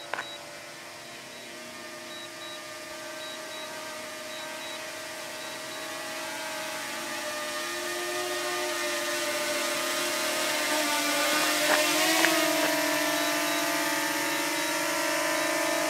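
DJI Mini 2 drone's propellers whirring in flight, a steady multi-tone whine that grows louder as the drone comes down close, with a brief wobble in pitch and a few clicks about twelve seconds in.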